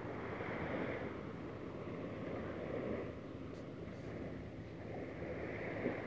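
Small sea waves breaking and washing onto a sandy beach, the surf swelling about a second in and again near the end.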